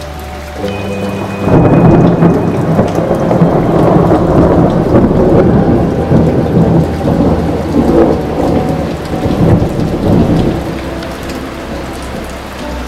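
A long roll of thunder with steady rain falling. The thunder swells about a second and a half in, rumbles loudly for several seconds and then dies away, leaving the hiss of rain.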